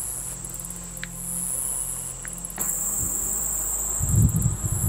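Crickets chirring steadily, growing louder about two and a half seconds in. Near the end a loud low rumble joins in.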